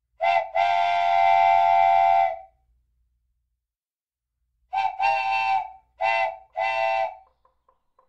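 A whistle sounding several notes at once: a brief toot, then a long blast, then after a pause four short toots.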